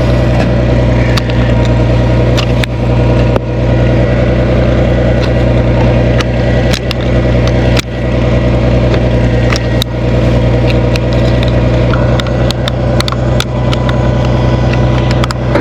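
International Farmall 460 tractor engine idling steadily, with scattered sharp clicks and taps close by.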